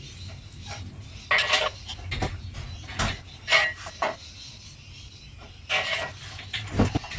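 Metal clanking in a garage: several separate clanks with a short ring, and a few dull knocks between them.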